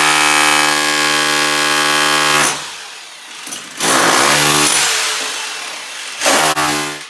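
Electric power tool working a concrete floor: its motor runs at a steady pitch for about two and a half seconds, winds down, runs again for about two seconds, then gives a short final burst near the end.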